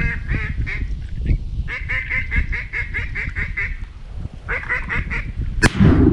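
Mallard hen quacks in quick runs of about five a second, three runs with short gaps between. Near the end comes a single sharp knock.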